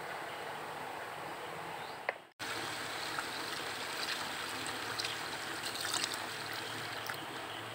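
A steady background hiss that drops out briefly about two seconds in, then tap water pouring into a plastic basin of glutinous rice and turmeric while a hand swishes and washes the rice, with small splashes.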